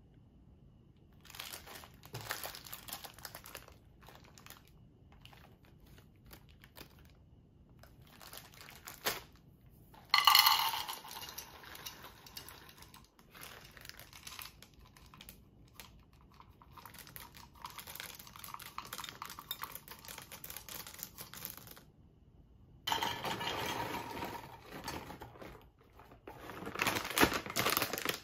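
Plastic snack bags crinkling in several bouts as they are handled, folded and opened, with dark chocolate chips poured from a bag into a glass bowl of batter.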